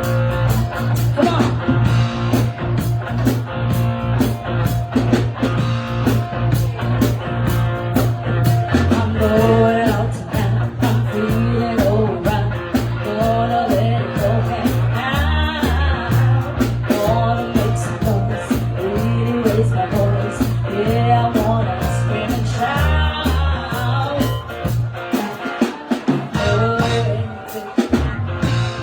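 Live band playing a blues and rock-and-roll groove: drums keeping an even beat under a steady bass line and guitar. About nine seconds in, a lead melody with bent, wavering notes comes in over it, and the bass drops out briefly near the end.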